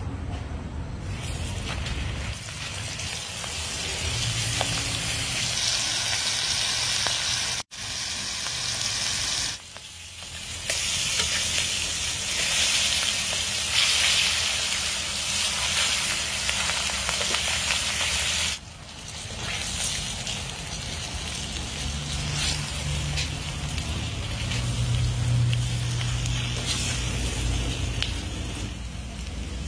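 Flour-coated eel pieces deep-frying in hot oil in a wok, a steady sizzle that breaks off abruptly a few times.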